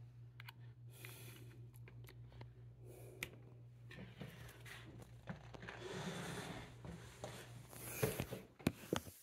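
Faint rustling and a few small clicks as a USB-C cable is handled and plugged in, over a low steady hum; the sharpest clicks come near the end.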